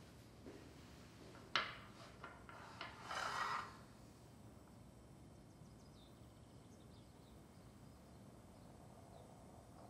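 A small ceramic espresso cup set down on a marble tabletop with one sharp clink, then a few lighter knocks, and a short scrape like a chair being pulled on the floor. Faint room tone for the rest.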